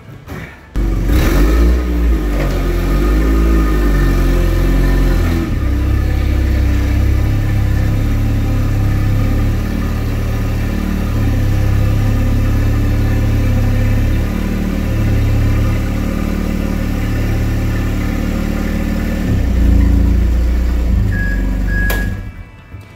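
Toyota forklift's engine starting about a second in, then running and revving with its pitch rising and falling as the forks lift and position a load. It cuts off near the end.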